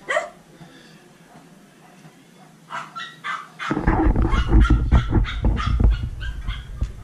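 A dog barking repeatedly, sharp short barks a few times a second through the second half. A loud low rumble on the microphone starts about halfway in.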